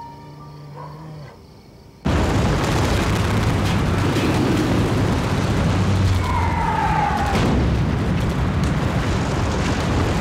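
Soft music, then about two seconds in a sudden loud din of war sound effects, explosions and heavy rumbling. Around the middle comes the descending whistle of a falling bomb.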